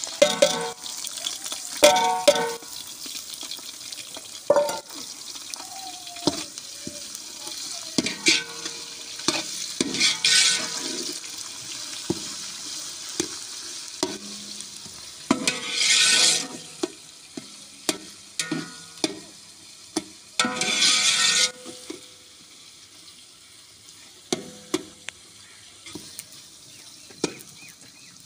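Sliced onions and green chillies sizzling as they fry in ghee in a large aluminium pot. A steel ladle stirs and scrapes against the pot in irregular strokes, each ringing briefly. The sizzle grows quieter over the last few seconds.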